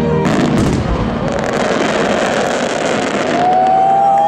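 Large fireworks display at its finale, many shells bursting together in a dense, continuous crackling and popping barrage. A long whistle comes in near the end.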